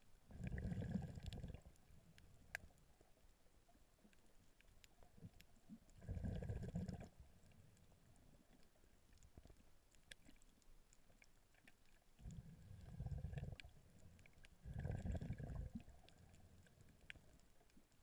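A snorkeler breathing through the snorkel, heard muffled through an underwater camera: four low whooshing breaths, each a second or so long, about six seconds apart. Faint scattered clicks come between them.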